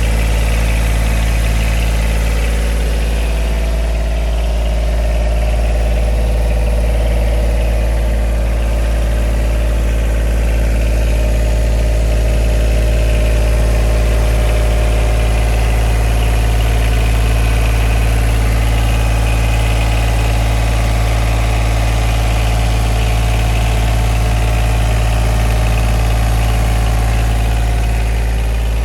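Yanmar 3TNV76 three-cylinder diesel engine of a CompAir C 15-14 mobile air compressor running at a steady speed, with a deep, even hum.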